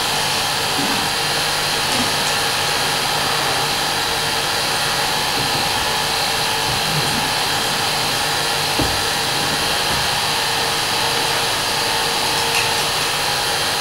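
An 8mm cine projector running with a steady motor-and-fan whirr, and one soft knock about nine seconds in.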